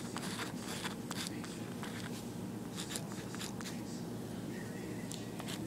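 Writing on paper: a run of short, scratchy strokes in bunches with brief pauses, over a steady low room hum.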